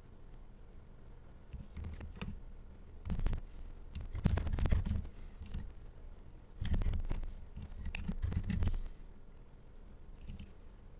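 Computer keyboard typing in several short bursts of keystrokes, separated by pauses.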